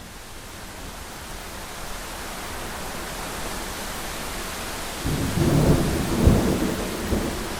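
Thunderstorm: a steady hiss of heavy rain swells in, then about five seconds in a low rumble of thunder rolls in, with a sharper crack at its peak a second later.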